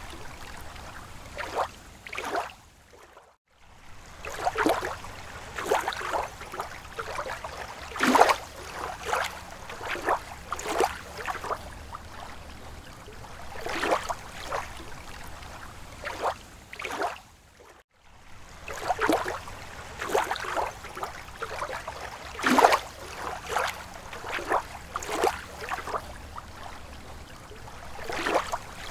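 Rippling water: irregular small laps and splashes over a low steady wash. The sound drops almost to nothing for a moment twice.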